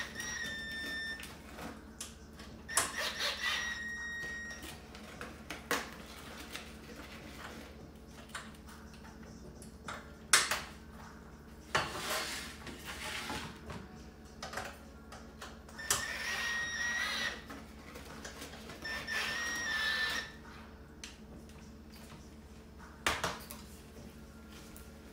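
Cordless drill-driver driving screws into a steel cart frame in about four short bursts, each a steady high whine lasting a second or two. Sharp knocks and clanks of the metal frame parts come in between, the loudest about ten seconds in.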